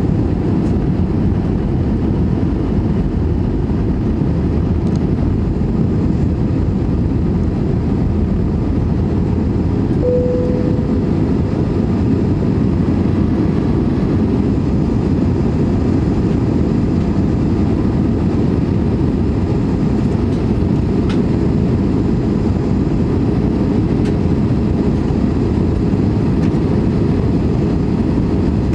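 Steady, loud rumble in the passenger cabin of an Airbus A320 on descent, from its engines and the air rushing over the wing with its flaps extended.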